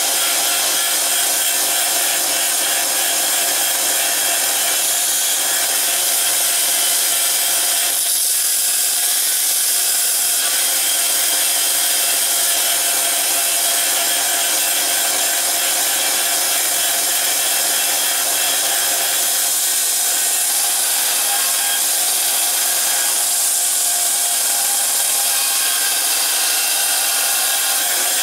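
Small bench belt sander running steadily, a steel knife blade held against the belt to grind its bevels.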